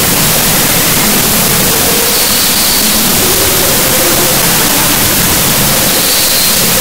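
Loud, steady static-like hiss spread evenly over low and high pitches, with no rhythm or distinct events: the noise of corrupted video-file data played as sound.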